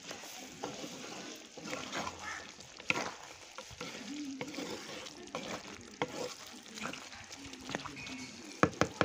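Duck meat sizzling in a clay pot in the juices it has let out, with no water added, while a wooden spatula stirs and scrapes through it. Scattered clicks of the spatula run through the sizzle, with three sharp knocks close together near the end.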